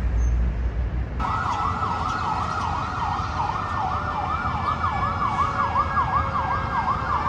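Emergency vehicle siren in yelp mode: a rapid rising-and-falling wail, about two to three sweeps a second, that starts suddenly about a second in over a low rumble.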